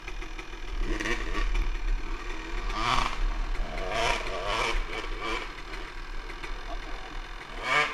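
Motocross dirt bike engine revving in several short bursts, the pitch rising and falling with each blip of the throttle.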